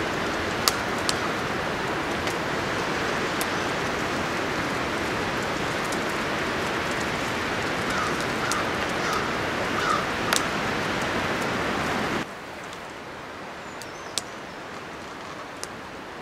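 Wind rushing through conifer treetops, a steady noise, with a few sharp ticks and a short run of four chirps about eight to ten seconds in. The wind noise cuts off suddenly about three-quarters of the way through, leaving a quieter hiss with a few more ticks.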